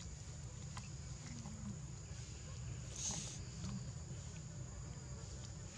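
Insects keeping up a steady, thin, high-pitched drone over a low outdoor rumble, with a brief hissing rustle about three seconds in.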